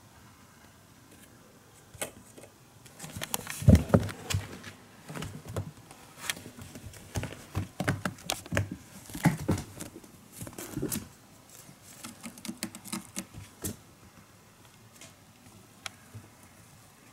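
Kittens playing on a carpeted cat tower: paws thumping, scrabbling and knocking on the platforms and posts. A run of irregular knocks and scratches starts about two seconds in, is loudest around four seconds, and thins to a few scattered taps near the end.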